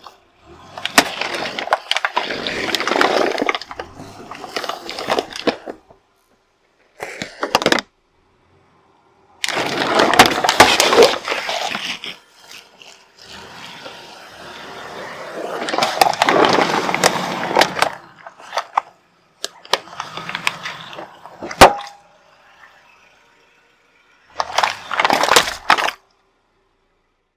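A car tyre crushing plastic cola bottles with balloons fitted on their necks: several bouts of crackling and crunching plastic with sharp snaps. One single sharp crack stands out about three quarters of the way through.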